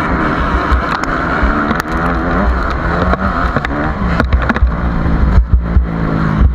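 Single-cylinder four-stroke engine of an HM CRE 250 F dirt bike under hard acceleration, its pitch climbing and dropping as it revs through the gears, among the engines of other motocross bikes close by. Heavy low buffeting on the microphone grows in the second half.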